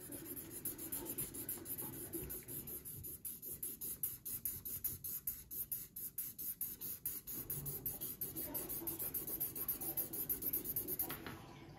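Felt-tip marker scratching across paper in rapid back-and-forth shading strokes, about four to five a second, stopping near the end.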